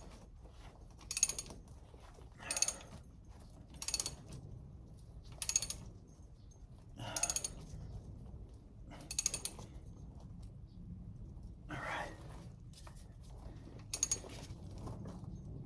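Ratchet wrench clicking in repeated strokes, a short run of clicks every one to two seconds, as it turns a Wheeler-Rex crimp tool to re-round a crimped copper water line.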